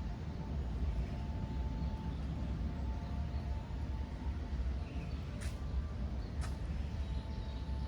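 Outdoor ambience dominated by a steady low rumble, with a faint steady high tone and two sharp ticks about five and a half and six and a half seconds in.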